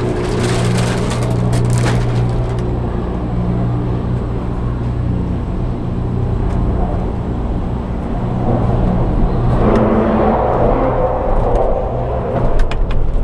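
Gondola cable car cabin moving through the station, heard from inside the cabin: a steady mechanical hum from the lift machinery, with rattling clicks in the first couple of seconds. About ten seconds in a rumble swells, and a few sharp clicks follow near the end as the cabin leaves the station.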